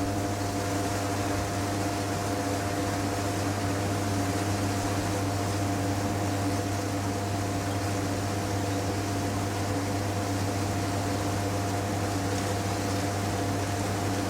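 A steady machine-like hum with a hiss over it, holding unchanged, with a low drone and several faint steady tones above it.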